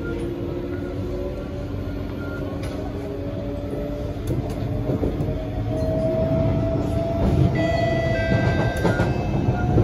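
SMRT C151B metro train running and slowing into a station: rumble from the car with several steady electric whining tones from the traction equipment, one climbing gently in pitch in the second half, and a cluster of higher-pitched tones joining near the end.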